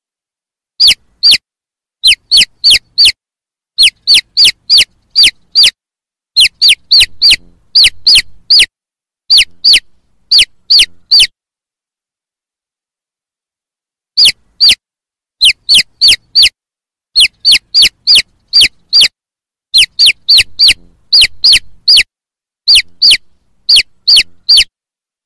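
Chicks peeping: loud, short calls that each fall in pitch, in quick runs of two to five, with brief pauses between runs and a gap of a few seconds around the middle.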